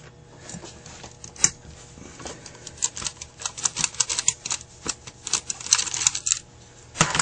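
Light, irregular metallic clicks and taps of a screwdriver working the jets in a Carter AFB carburetor's metal body, growing quicker and denser in the second half.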